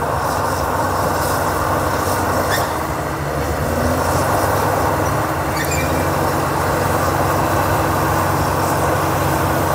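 Caterpillar D6T XL crawler dozer's diesel engine running steadily at working speed, with the dense mechanical noise of the machine over the engine's low hum.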